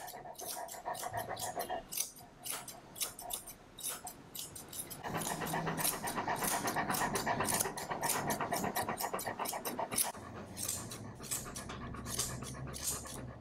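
Large Great Pyrenees–Bernese mountain dog mix panting in quick, even breaths, busier from about five seconds in.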